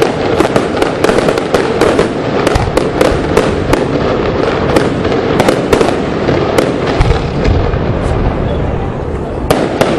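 Fireworks display: a rapid run of sharp cracks and bangs, several a second, over a continuous crackling wash. The cracks thin out near the end.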